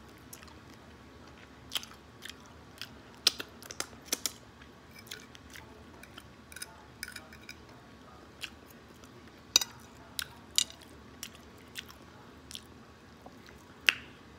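Close-up chewing of fried chicken with ranch: irregular short wet mouth clicks and smacks, a few noticeably louder than the rest.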